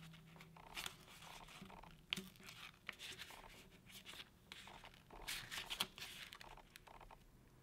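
Faint rustling and crinkling of a sheet of paper being folded over and creased by hand, in scattered short strokes, the loudest a little past the middle.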